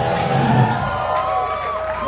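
Concert crowd cheering and shouting as a live rock song ends.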